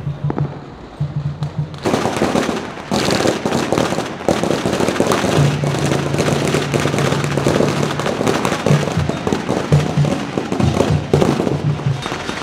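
Fireworks and firecrackers going off in a dense, rapid crackle of small bangs, starting about two seconds in, with a few louder pops among them.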